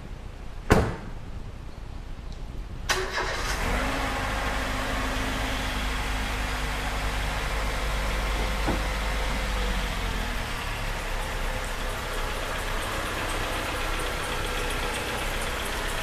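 A thump about a second in, then a Mercedes-Benz engine starts about three seconds in and runs at a steady idle. The engine carries the abnormal noise that a mechanic traced to a deteriorated rubber drive belt.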